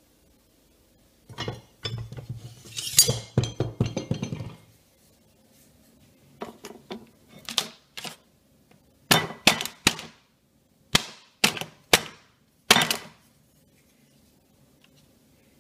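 A ceramic dinner plate and a cardboard food box clinking and knocking on a wooden kitchen worktop: a jumble of clatter for the first few seconds, then a string of separate sharp clinks and knocks.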